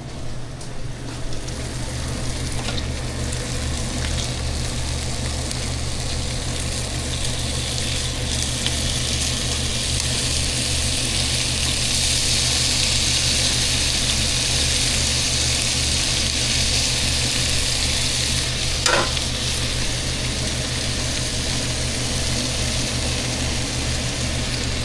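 Food frying in a hot pan, a steady sizzle that swells louder midway, over a steady low hum.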